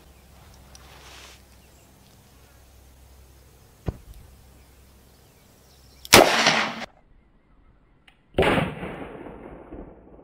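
A Smith & Wesson 686 revolver firing a .357 Magnum round, one loud sharp bang about six seconds in, after a faint click. After a moment of dead silence, a second loud bang rings out longer, the same shot heard closer to the target.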